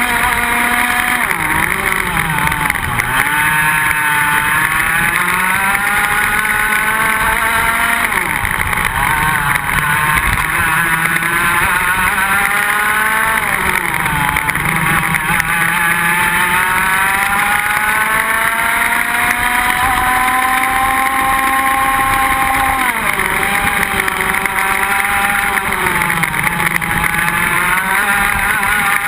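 IAME X30 125 cc single-cylinder two-stroke kart engine heard onboard at racing speed. Its pitch climbs slowly along the straights and falls back off the throttle into the corners several times, with the sharpest drop about 23 seconds in.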